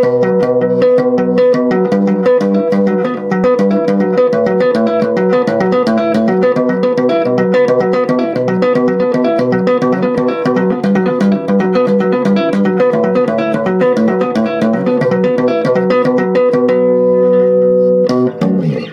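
ESP LTD B-206SM six-string electric bass played with two-handed tapping, on the neck pickup with the highs all the way up, through a small 15-watt Crate amp. A fast run of notes sounds over a steady held note, and it ends on a chord that rings for about two seconds before being stopped.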